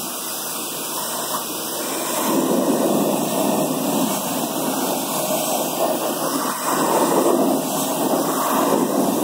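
Pressure washer wand spraying a steady jet of water onto a metal truck wheel and tire, rinsing the cleaner off. The hiss gets louder about two seconds in and cuts off suddenly near the end.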